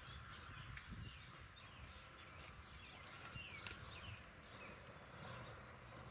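Faint outdoor background: small birds chirping in short, scattered calls over a low rumble.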